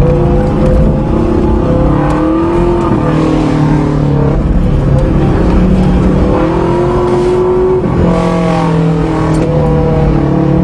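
Subaru flat-four boxer engine pulling the car along under load, its note climbing and then dropping several times as it revs.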